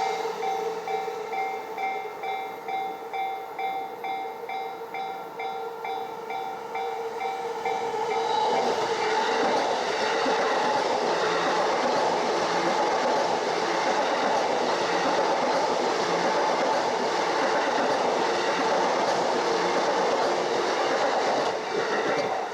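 Level-crossing warning bell ringing in a rapid, evenly repeating two-tone pattern. About eight seconds in, a Yamanote Line train runs over the crossing, its wheels and motors covering the bell until near the end.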